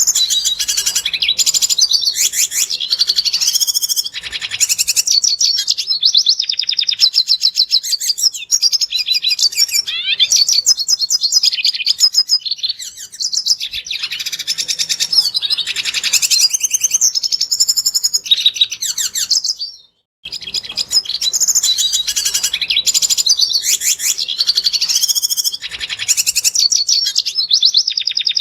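Red siskin singing: a long run of rapid, high twittering and trills, which drops out for about half a second about twenty seconds in and then picks up again.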